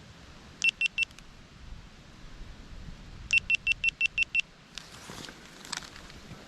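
Short, high electronic beeps from a device: a quick run of three about a second in, then a fast string of eight a little past the middle, followed by a few faint handling clicks.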